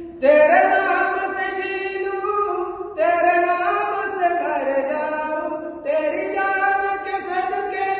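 Voices singing in a rock-cut cave, three long held phrases of about three seconds each, carried by the cave's resonance.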